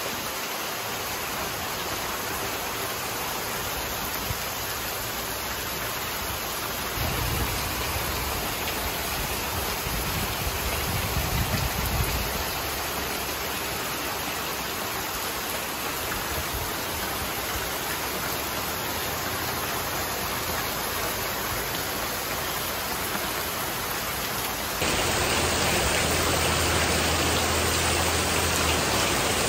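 Heavy rain falling steadily, a continuous hiss of downpour, with a low rumble for a few seconds near the middle. About 25 seconds in it turns a little louder and brighter.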